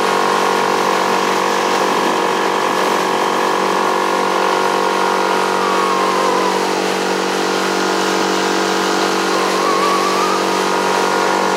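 2019 Yamaha 6 hp four-stroke single-cylinder outboard motor running at wide-open throttle, a loud, steady engine note.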